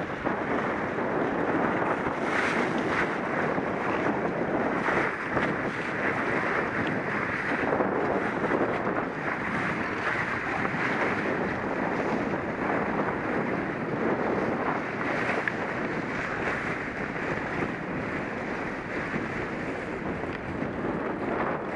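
Wind buffeting the microphone and water rushing past the hull of a sailing trimaran: a steady rush that swells and eases a little, with no engine.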